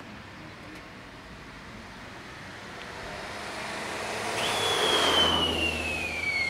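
Underfloor equipment of a standing Ichibata electric train: a rush of machine noise swells up over a few seconds, and near the end a whine starts suddenly and falls steadily in pitch, with a low hum beneath it.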